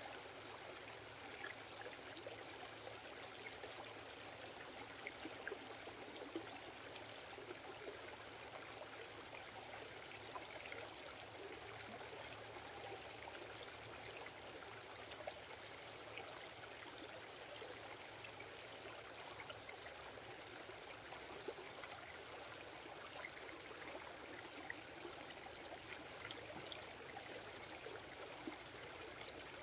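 Faint, steady outdoor background hiss with a thin, high, steady whine, and a few light clicks and taps scattered through it.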